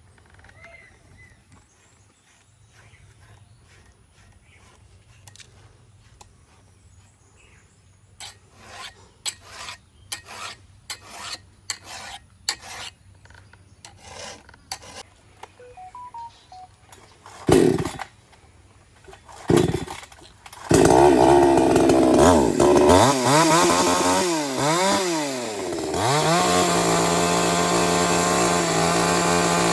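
A chainsaw is pull-started: two short, sharp bursts, then a few seconds later the engine catches. It revs up and down several times, then settles into a steady high run. Before that come a series of softer short knocks or rustles.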